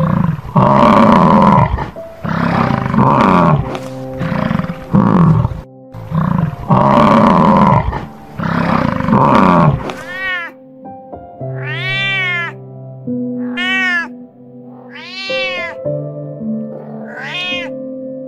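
A large animal roaring, five loud bursts in the first half, then a domestic cat meowing over and over, each meow rising and then falling in pitch. Background music plays underneath.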